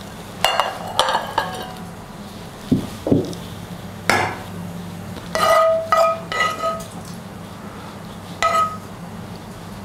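A utensil clinking and knocking against a dish while boiled varenyky are stirred together with fried onion. It makes a dozen or so irregular strikes, several of which ring briefly.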